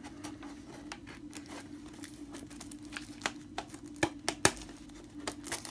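Plastic shrink wrap on a cardboard box being picked at and slit with a pointed tool: scattered crinkles and sharp clicks, the loudest a little after the middle.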